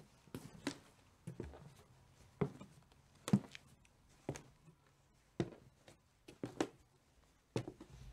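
Footsteps on the old wooden floors and stairs of a house, one slow step about every second at an uneven pace, each a sharp knock.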